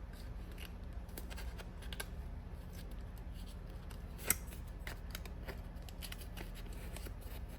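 A playing card worked as a shim into the ratchet of ASP Sentry chain handcuffs: faint scraping and small metal clicks, with one sharper click about four seconds in.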